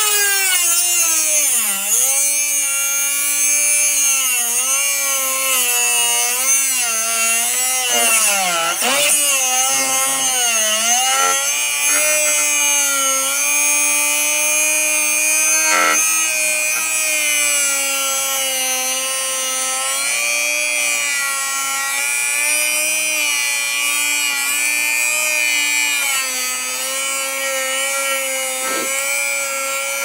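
Dremel rotary tool with a 540 cut-off wheel grinding through a disc padlock: a high motor whine over a grinding hiss. The pitch sags several times in the first ten seconds as the wheel is pressed into the metal, then holds steadier.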